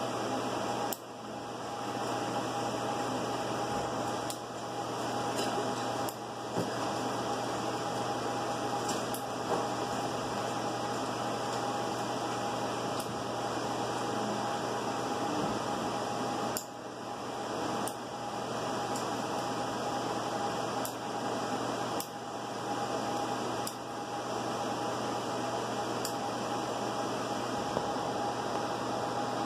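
Steady whir of fans with a constant humming tone, and a few light clicks from battery tray hardware and connectors being handled.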